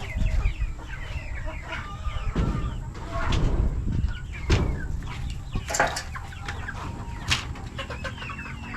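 A flock of chickens clucking continuously, many overlapping short calls, with several brief rustling noises among them.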